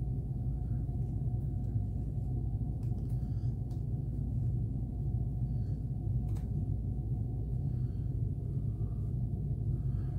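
Steady low rumble and hum of a ship's cabin background, with faint soft rustling and a few light clicks as a terry towel is twisted and folded.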